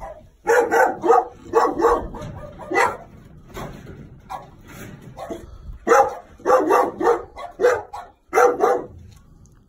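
Dog barking repeatedly in quick bursts, with a lull of a few seconds midway.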